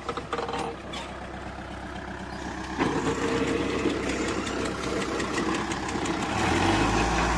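Kubota 4x4 tractor's diesel engine running under load as it drives a rotavator through ploughed soil, its PTO set to the 750 speed. The sound grows louder about three seconds in, and near the end a deep low hum swells as the engine takes more strain.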